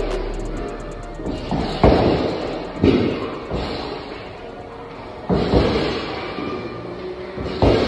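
Punches landing on a heavy punching bag: a few sharp thuds, spaced irregularly about one to two and a half seconds apart, over background music.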